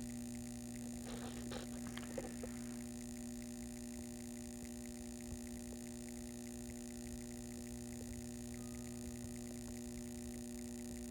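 Steady electrical hum, with a few faint clicks about one to two seconds in.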